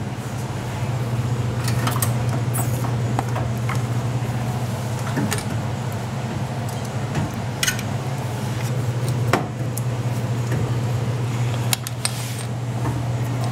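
Scattered light clinks and rattles of an aluminium radiator, hoses and clamps being handled and fitted into a car's engine bay, over a steady low hum.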